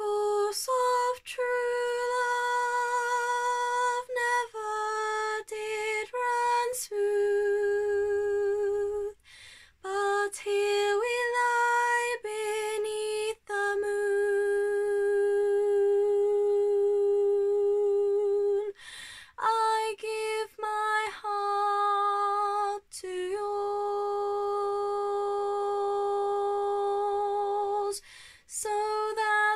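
A young woman singing solo and unaccompanied, in long held notes with a steady vibrato, phrase after phrase with short breaths between.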